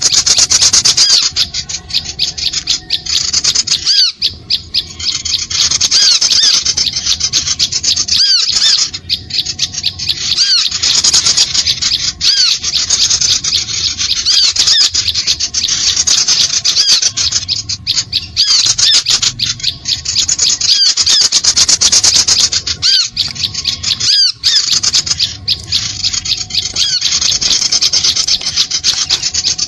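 Recorded bird-lure call of small birds: a dense, continuous chorus of rapid high-pitched chirps and squeaks, broken by short pauses every few seconds.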